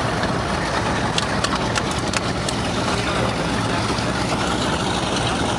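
Powerboat engine idling at low speed: a steady low rumble under an even hiss.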